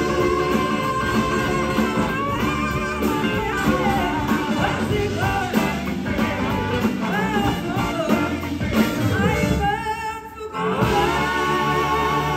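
A live blues-rock band playing, with electric guitars, drums and bass under a woman's lead vocal. The sound drops back briefly about ten seconds in, then the full band comes back in.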